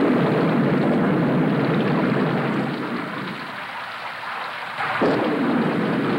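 Loud rushing, rumbling water noise that eases a little midway and swells back up abruptly about five seconds in.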